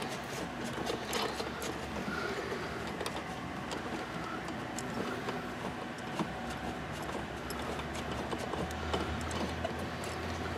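Scattered light clicks and taps of a hand wrench on metal engine fittings as a check valve is fitted into a hose line, over a steady low hum.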